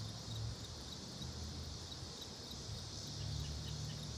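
A chorus of insects: a constant high buzz with a faint, regularly repeating chirp. A low steady hum runs underneath.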